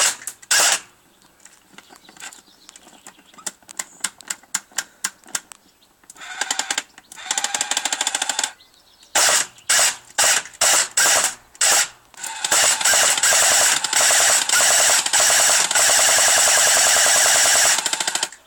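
Electric M249 airsoft gun firing at a target: a string of single shots and short bursts, then a long unbroken burst of full-auto fire lasting about six seconds near the end.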